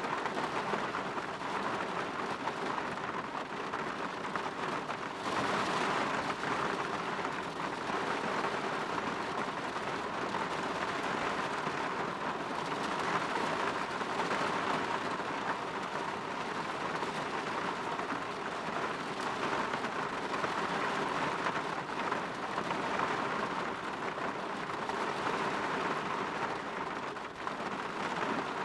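Steady rain falling, its patter on a window and outside surfaces rising and easing in slow swells.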